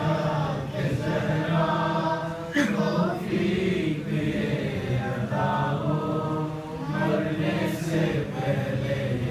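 A young boy chanting a munajat, a devotional supplication, as a melodic recitation of long held notes with short breaks between phrases.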